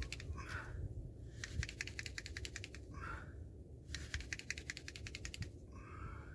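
Hand-drill spindle twisted back and forth between the palms on a chaga fireboard: three bouts of fast, fine clicking, each about a second and a half long, with a short rubbing sound between bouts as the hands shift on the spindle. It is a friction-fire attempt that is smoking but has not yet made an ember.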